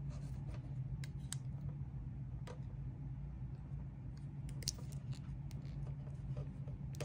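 Hand wire strippers nicking and stripping a thin LED wire: a few scattered sharp clicks and snips over a steady low hum.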